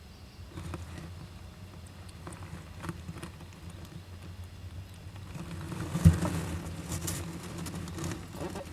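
Japanese giant flying squirrels stirring inside a nest box: scattered scratches and taps of claws and bodies against the box, growing busier past the middle, with one loud thump about six seconds in.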